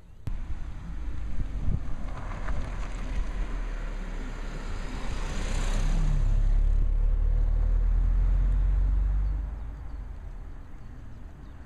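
A motor vehicle passing close by: a rush of noise that swells to a peak about halfway through and then falls away, over a low engine rumble that holds a few seconds longer before fading.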